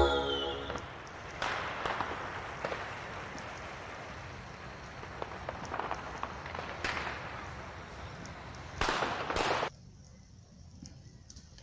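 Fire crackling: a steady rushing hiss with scattered sharp pops. A louder rush comes about nine seconds in and cuts off abruptly, leaving a fainter hiss.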